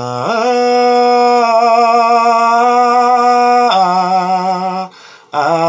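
A man sings a vocal warm-up exercise in B. He holds the low root note, slides up an octave and holds it with a slight wavering vibrato, then drops to the fifth. The voice breaks off briefly about five seconds in and starts again with a rising note.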